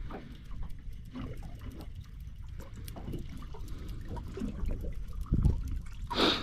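Small waves lapping and slapping irregularly against the hull of a small drifting boat, with one louder thump about five seconds in.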